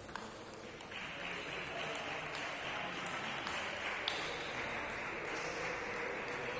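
Table tennis rally: a few sharp clicks of the ball off the paddles and table, the loudest about four seconds in, over a steady hiss that comes in about a second in.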